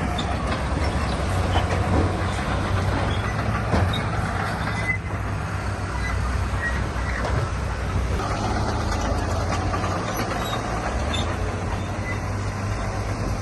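Heavy diesel earthmoving machine running steadily under load, with a few short knocks in the first few seconds, as of rock or steel tracks striking.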